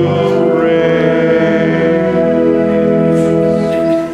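Voices singing a psalm refrain in long held notes, with a brief break just at the end.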